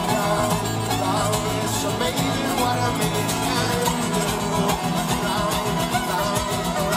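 Live acoustic music: two steel-string acoustic guitars playing together, with a man singing.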